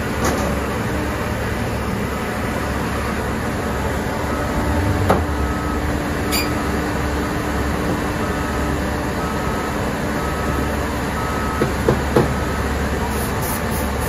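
Caterpillar 963C track loader's diesel engine running steadily at low revs, with sharp metal clanks as the machine shifts on the steel trailer deck: one about five seconds in, a lighter one a second later, and three in quick succession near the end. Faint short beeps repeat about once a second.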